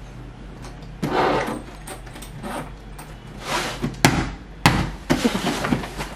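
A packed suitcase being pressed and forced shut: scraping and rustling as weight goes onto it, two sharp knocks a little after four seconds in, then a quick run of short scrapes.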